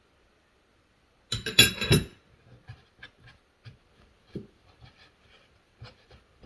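A metal spoon scraping and clinking for under a second about a second in, followed by soft, scattered taps and rustles of hands folding and pinching bun dough on a floured wooden board.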